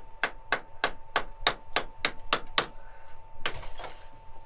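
A quick, even series of about nine sharp knocks, roughly three a second, like hammering, followed by a short rough scraping noise.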